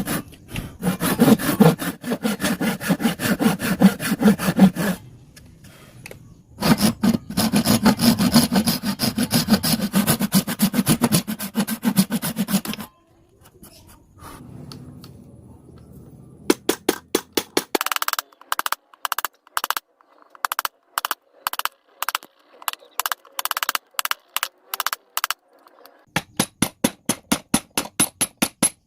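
Hand saw cutting wood in fast strokes, in two runs with a short pause between them. After a quieter spell come slower, separate strokes about two or three a second, quickening near the end.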